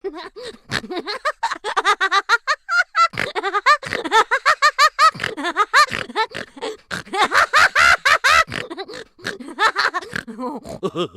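Human laughter from meme laughing sound effects: a long run of rapid, short 'ha-ha' pulses, pausing briefly about three seconds in before carrying on.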